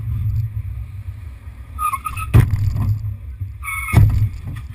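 Steady low rumble of a moving car heard from inside, broken twice by a short high-pitched tone, each followed by a sharp knock.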